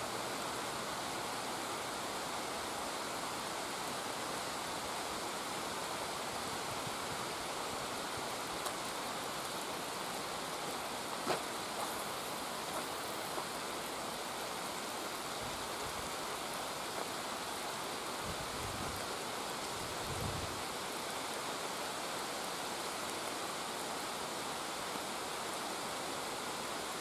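Steady rain falling: an even hiss with a few faint ticks and a couple of brief low rumbles about two-thirds of the way in.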